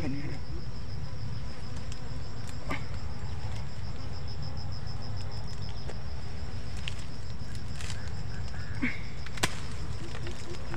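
Insects buzzing around a wild honeybee comb: a steady, rapidly pulsing high trill over a low steady hum. A few sharp snips of pruning shears cut through, the loudest about nine and a half seconds in.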